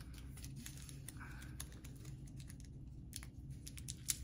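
Faint, scattered light clicks and taps of candy packaging being handled, over a low steady room hum.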